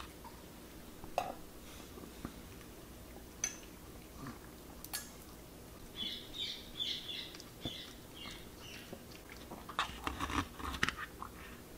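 Chihuahua eating: faint, scattered chewing and clicking sounds, with a quick run of chewing about halfway through and another cluster near the end.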